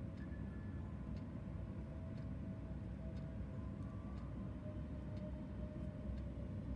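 Faint scattered clicks and taps from handling paper, stickers and stationery while journaling, over a steady low hum, with soft held notes of quiet background music.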